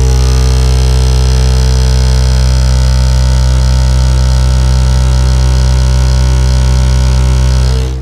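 Car audio subwoofer in a ported enclosure with lengthened ports playing a steady 64 Hz test tone at about 2000 watts, metering near 153 dB, with a harsh buzz spread high above the tone. The tone cuts off abruptly near the end.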